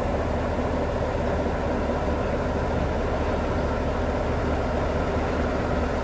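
Steady low rumble of a vehicle driving along, engine and road noise heard evenly with no changes.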